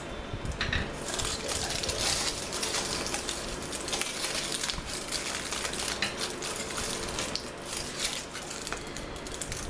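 Aluminium foil crinkling and crackling as hands grip and pull a foil lining out of a baking dish, with many small sharp crackles throughout.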